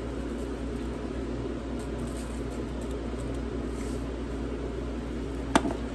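Steady low hum of kitchen room noise, with a single sharp click about five and a half seconds in.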